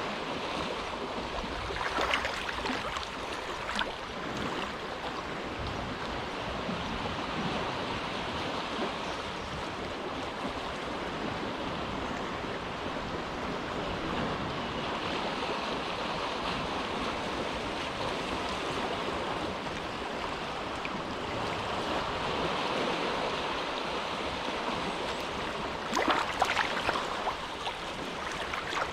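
Gentle waves lapping in a sheltered cove, a steady wash of water. There are a couple of louder splashes, one about two seconds in and a cluster near the end.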